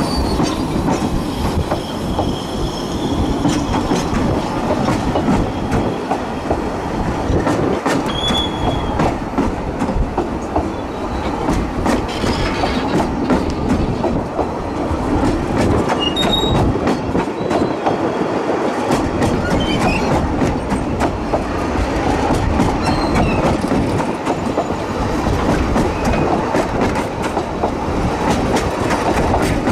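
Narrow-gauge passenger coaches rolling past close by, a steady rumble with wheels clicking over the rail joints and a few brief high wheel squeals now and then.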